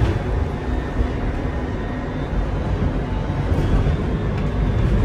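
Steady low rumble of a tram in motion, heard from inside its passenger cabin.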